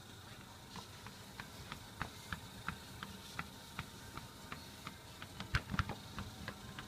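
Treadmill running with a steady low motor hum and light regular ticks, about three a second, from the moving belt under the cat. A few louder knocks come about five and a half seconds in.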